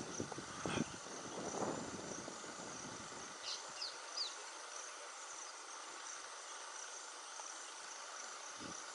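Steady high-pitched drone of insects, with three short high chirps falling in pitch about three and a half to four seconds in. Low noise in the first three seconds then drops away.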